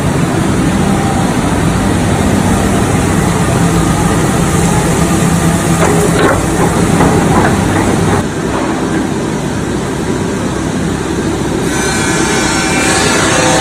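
Steel hot rolling mill at work: the loud steady din of rolling stands and roller tables as a red-hot bar runs through, with a low hum and a hiss. There is a run of metallic clatter about six to seven seconds in. The noise changes abruptly about eight seconds in and again near the end.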